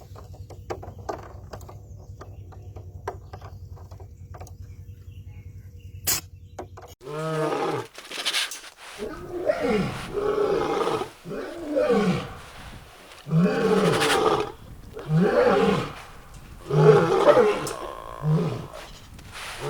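A steady low hum with faint ticking, then about seven seconds in a hybrid cat starts meowing loudly and keeps on with long, wavering calls, about one every second or two.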